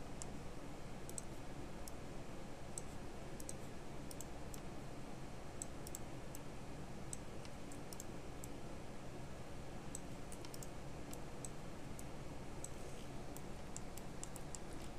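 Scattered, irregular clicks of a computer mouse and keyboard over a steady low hum.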